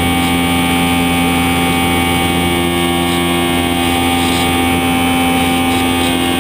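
Electric motor and propeller of a HobbyZone Super Cub model airplane running at a steady pitch, a constant whine heard close up from a camera mounted on the plane's underside.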